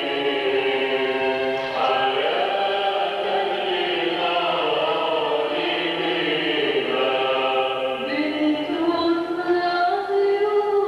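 Choir singing a slow Arabic hymn in long held notes. A solo female voice comes in near the end.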